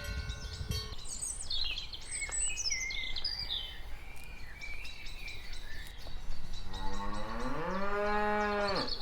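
A cow mooing once: a long moo that starts late, rises in pitch, then holds steady and stops just before the end. Small birds chirp in the background, mostly in the first half.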